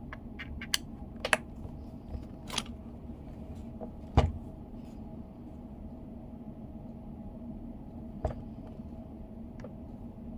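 A handful of scattered clicks and knocks, the loudest about four seconds in, over a steady low hum.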